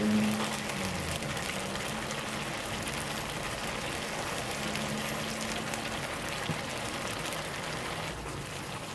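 Pork liver simmering and sizzling in a frying pan in a sauce of soy sauce and lemon juice, a steady crackling bubble. A faint low hum runs underneath at times.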